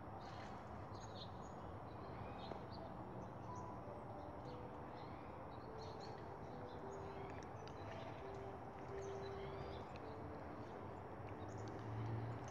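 Small birds chirping and twittering throughout, many short high calls and quick little glides, over steady outdoor background noise.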